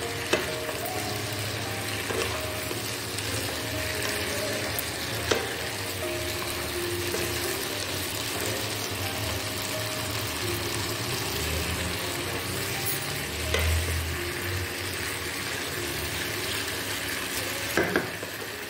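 Chicken pieces sizzling in a thick sauce in a nonstick wok while a spatula stirs them, the spatula knocking against the pan a few times.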